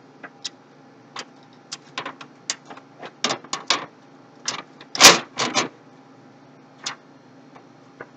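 Computer parts being handled and fitted in a PC case: a run of irregular clicks and taps, with a louder knock about five seconds in.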